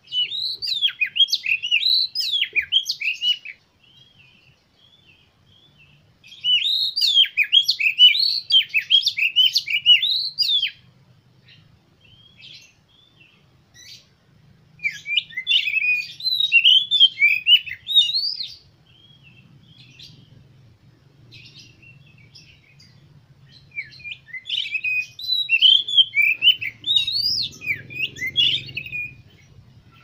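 Male oriental magpie-robin singing: four bouts of rapid, varied whistled phrases, each a few seconds long, with short pauses between them.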